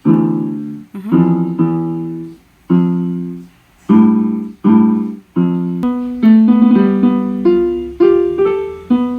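Davis D-610 electronic keyboard being played: several chords struck one after another with short gaps, each fading as it is held, then from about six seconds a quicker line of single notes stepping upward.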